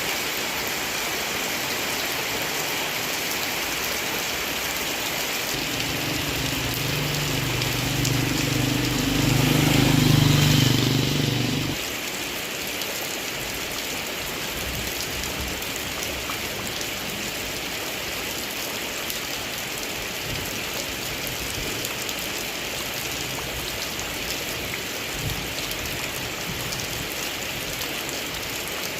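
Heavy rain falling steadily. From about six seconds in, a low pitched drone, like an engine, swells up and stops suddenly about twelve seconds in.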